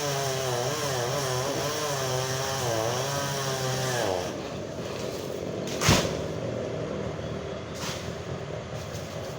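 Chainsaw engine running under load with a wavering pitch, then dropping back to a lower, quieter run about four seconds in. A loud thump comes about six seconds in, and a lighter one follows near the end.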